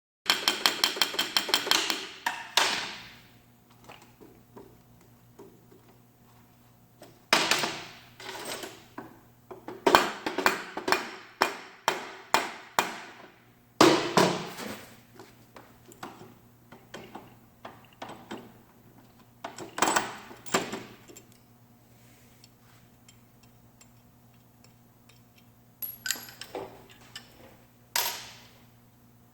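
Hammering in bursts of quick strikes: a fast run of blows at the start, then several more clusters with pauses between. A faint steady hum sits underneath.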